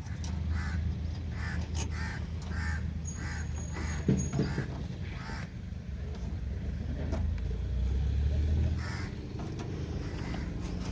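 A bird calling repeatedly, about two short calls a second for several seconds, over a steady low hum. A single knock comes about four seconds in.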